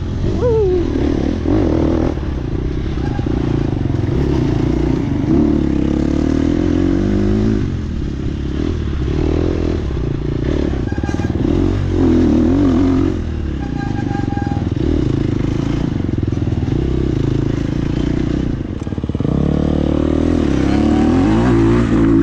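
Dirt bike engine heard from on board the bike, revving up and down again and again as the throttle is opened and closed.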